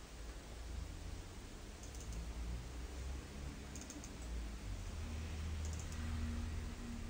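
Computer mouse clicks: three quick clusters of double-clicks about two seconds apart, over a low steady rumble.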